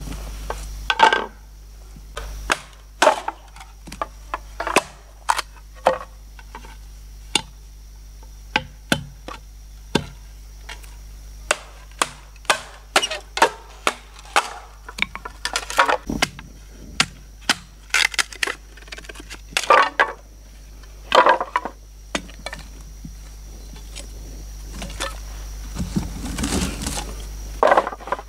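Bamboo tubes being split by striking a blade with a wooden baton: a long run of sharp cracks and knocks, irregularly spaced. Some come in quick clusters. Near the end there is a longer rustling scrape of wood being handled.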